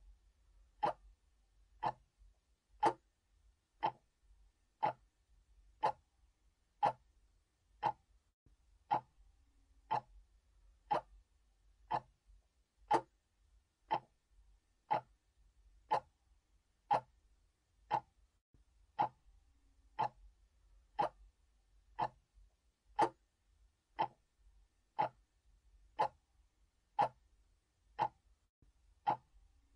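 Mechanical clock ticking steadily, about one tick a second, alternate beats slightly louder in a tick-tock.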